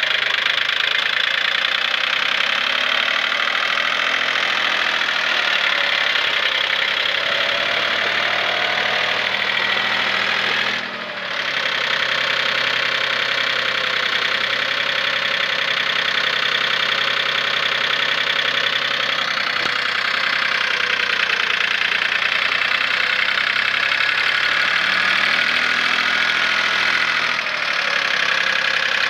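2007 Jinma 284 tractor's diesel engine running steadily as the tractor drives, with a short dip in level about eleven seconds in.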